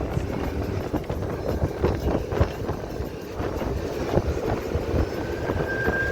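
Train running with a continuous rumble and rattling clatter. A thin, steady high squeal starts about five seconds in.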